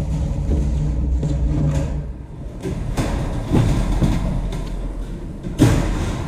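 Steel reinforcing wire mesh clinking and rattling under a worker's boots as he walks across it and bends to handle it, with a few thuds, loudest just past the middle and near the end, over a steady low drone.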